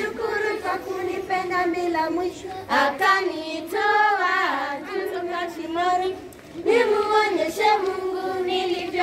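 A group of children singing a song together, with a short break in the singing about six seconds in.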